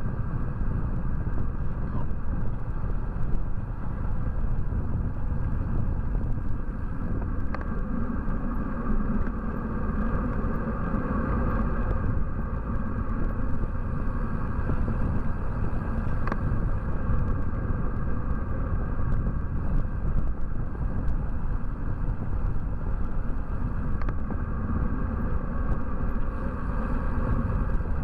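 Steady wind rumble and road noise on a bicycle-mounted camera's microphone while riding, with a few faint clicks or rattles now and then.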